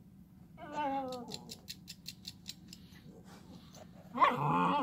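An Alaskan Klee Kai giving soft howls to get another dog's attention: a short falling howl about half a second in, then a louder wavering howl near the end. Between them comes a quick run of about five clicks a second.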